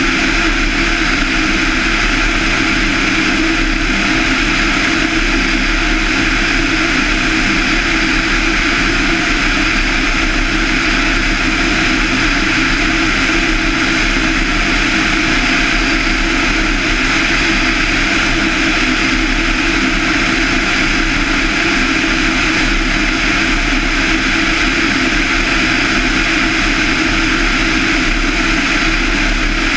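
Van's RV-7's 200 hp Lycoming IO-360-A1A engine, a four-cylinder, fuel-injected flat-four, running steadily in flight, with its propeller turning. The drone holds an even pitch and level throughout.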